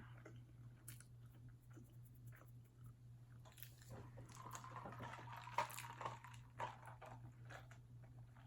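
Close-up eating sounds: quiet chewing and biting of french fries, with small mouth clicks and a louder, noisier stretch in the middle.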